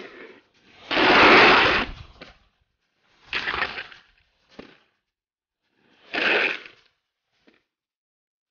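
Aggressive inline skates grinding and scraping on concrete ledges in three short bursts, the loudest and longest about a second in, with sharp clacks of the skates hitting the ground between them.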